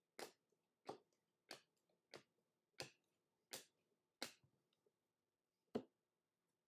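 Trading cards being flipped through one at a time, each card making a short, soft snap as it is moved: seven snaps at an even pace about two-thirds of a second apart, then one more after a short pause.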